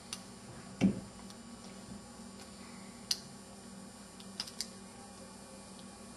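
A metal prying tool working into the seam of an Alcatel One Touch 918D's plastic housing, with scattered small clicks of tool and plastic. There is a louder dull knock a little under a second in, a sharp click about three seconds in, and two quick clicks past four seconds.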